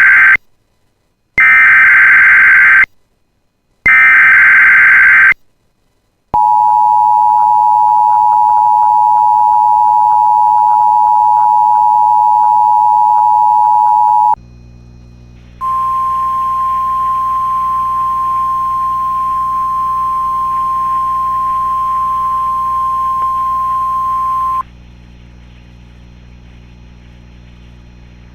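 Emergency Alert System test signals. First come the end of one burst and two more one-and-a-half-second bursts of SAME digital header data. These are followed by the two-tone EAS attention signal, held steady for about eight seconds. After a short break, a single steady NOAA Weather Radio 1050 Hz warning alarm tone sounds for about nine seconds, and it gives way to a low hiss.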